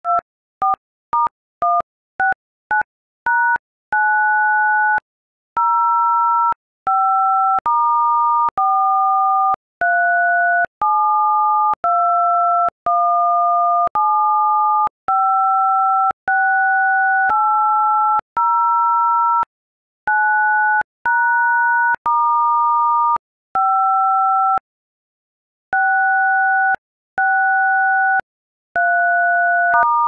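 iPhone keypad playing DTMF touch tones as keys are pressed, each tone two pitches sounding together. A quick run of about eight short beeps comes first, then a long series of tones held about a second each with brief gaps.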